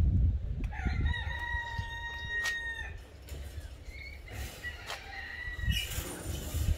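A rooster crowing: one long, level, drawn-out call of about two seconds, followed by fainter, shorter calls. Low rumble of wind and handling noise on the microphone underneath.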